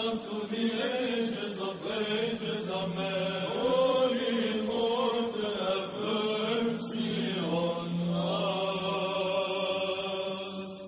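Orthodox church chant sung in English: voices draw out long, wavering melodic lines over a steady low held drone note. The chant trails off near the end at a break between phrases.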